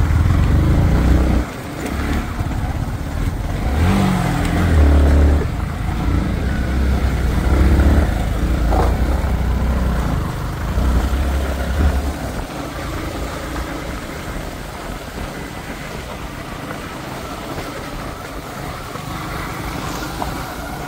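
A motor vehicle's engine running as it labours over a rough hill track, with heavy low rumbles in bursts during the first twelve seconds, then a steadier, quieter run.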